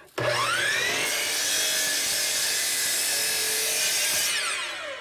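Miter saw motor starting with a rising whine, then the blade crosscutting a rough-sawn board. About four seconds in the motor is switched off and spins down with a falling whine.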